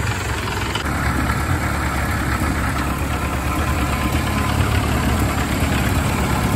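Ford Model A's four-cylinder flathead engine idling steadily.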